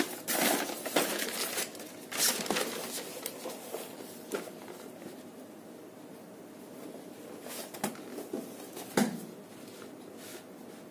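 Paper rustling as a spiral-bound notebook page is turned over and smoothed flat, followed by a few light taps from handling the notebook and pencil.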